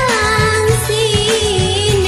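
Live band music: a wavering lead melody line, slowly drifting lower, over a repeating bass pattern.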